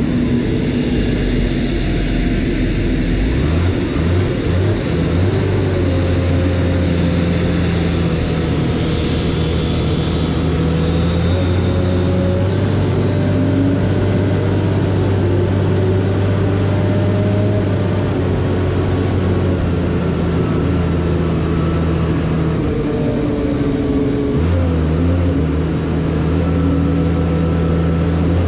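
TPX 500 S towbarless aircraft tug's engine running as the tug drives off across the apron. Its hum drops out briefly and shifts in pitch a few times, about four seconds in, near the middle and near the end.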